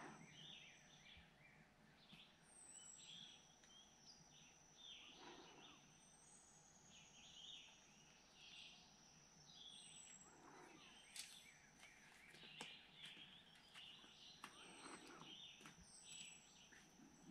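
Near silence: faint outdoor ambience with a bird's short, falling chirp repeated every couple of seconds over a thin, steady high whine. There is faint irregular scratching, like a squirrel's claws on concrete block.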